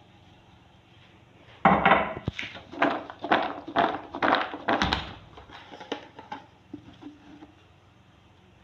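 Raw peanuts being shaken and tossed with flour in a bowl to coat them, rattling in a run of about eight quick shakes, two a second, then a few faint knocks.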